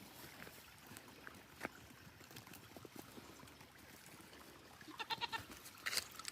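A young goat (kid) bleats once near the end, a short wavering call, followed by a brief sharper sound.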